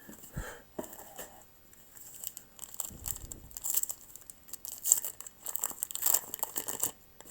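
Wax-paper wrapper of a baseball card pack crinkling and tearing as it is opened by hand, in a run of crackly bursts through the second half.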